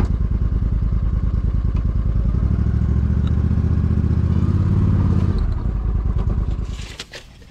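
Argo amphibious ATV engine running as the machine is driven slowly forward, swelling a little about halfway through, then dying away near the end.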